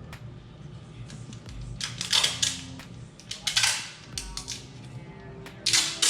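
Duct tape being pulled off the roll in three short ripping bursts, about two seconds apart, as 9-volt battery terminals are taped over.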